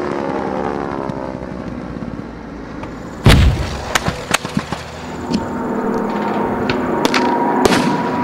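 A low-passing propeller fighter's engine note falling away, then a loud blast about three seconds in and a quick string of sharp gunfire cracks. After that, piston aircraft engines drone steadily louder as more fighters come over, with a few more bangs.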